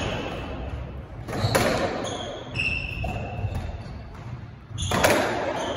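Squash ball being struck and hitting the court walls in a rally, two loud echoing cracks about a second and a half in and again about five seconds in. Short high squeaks of shoes on the wooden court floor come in between.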